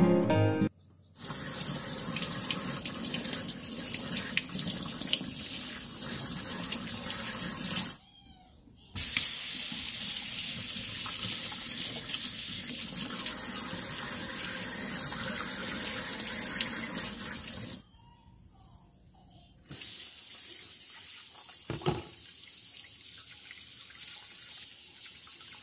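Kitchen tap running over mushrooms as they are rinsed by hand, the water splashing into a stainless steel sink. It comes in three stretches with brief silent breaks, the last one quieter as the water falls into a bowl of soaking mushrooms, with a single click near the end.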